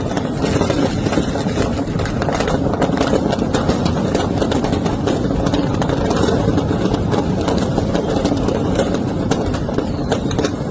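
Firecrackers crackling and popping in a burning firecracker shop: rapid, irregular sharp cracks over a steady low rumble.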